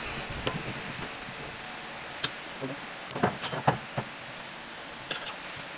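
Scattered clicks and knocks of hand tools and metal parts being handled on a driveshaft clamped in a bench vise, with a cluster of knocks between about three and four seconds in, over a steady background hiss.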